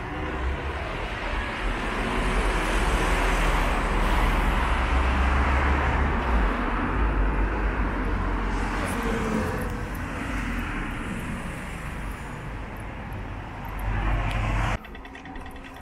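Road traffic passing close by: the noise of cars swells to its loudest a few seconds in, with a low rumble, then eases, and cuts off abruptly near the end.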